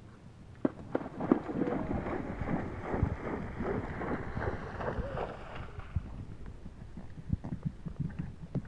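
Horse's hooves splashing through shallow water at a canter for about five seconds, then lighter hoofbeats on grass as it leaves the water.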